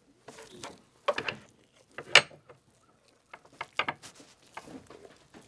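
Scattered clicks and clinks, with one sharp, louder clink about two seconds in, as a steel turkey-fryer hook is handled and worked into a bone-in rib roast on a cutting board.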